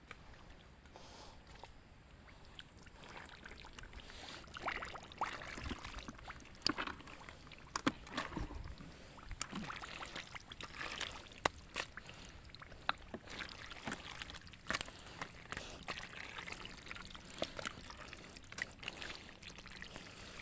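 Irregular splashing, sloshing and trickling of shallow water in a nearly drained fish pond, with scattered sharp clicks and knocks.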